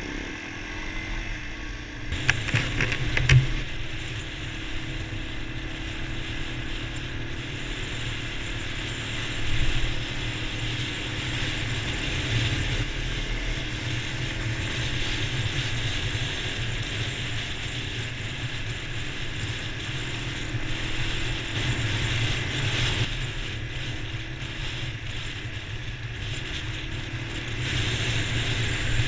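Dual-sport motorcycle running at speed on a gravel road: steady engine and rattling road noise from the rider's own bike, with a few sharp knocks a couple of seconds in.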